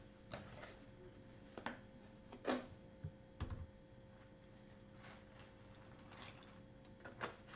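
A plastic milk jug being handled, uncapped and poured over a bowl of dry cereal: a scatter of small clicks and knocks, the loudest about two and a half seconds in.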